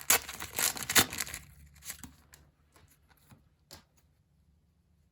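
Foil trading-card packet being torn open and crinkled, with the loudest rips in the first second and a half, then a few faint taps as the cards are handled.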